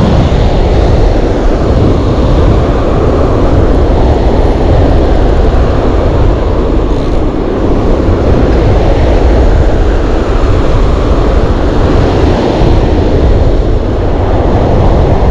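Loud, steady roar of wind buffeting the microphone together with breaking ocean surf on an open beach.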